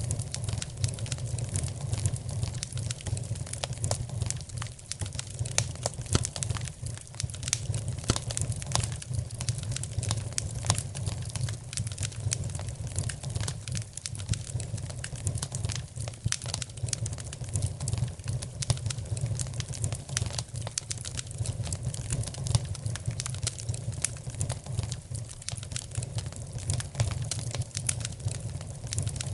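Wood fire crackling in a fireplace, with frequent sharp crackles over a steady low rumble.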